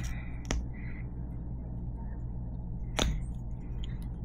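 Two sharp small clicks of a plastic concealer tube and its cap being handled, one about half a second in and a louder one near three seconds, over a steady low hum.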